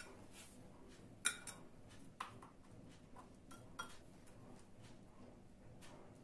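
A few light, sharp clicks and taps from handling kitchenware while soaked ladyfinger biscuits are laid in a dish. The sharpest click comes about a second in, with fainter ones after it, over a quiet room hum.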